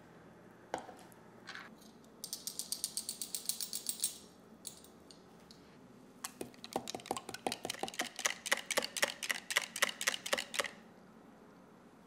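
Wire whisk beating egg custard in a glass measuring cup, its wires clicking against the glass about five times a second for some four seconds in the second half. Earlier there is a quick run of light, high clicks.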